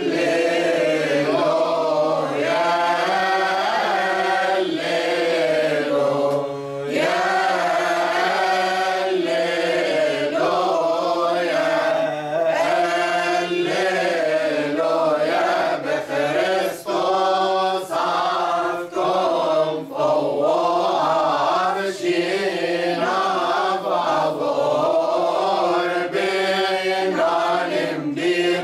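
A mixed group of adult men and women singing a church hymn together, unaccompanied, reading from song sheets. The singing goes on in long phrases with short breaks for breath.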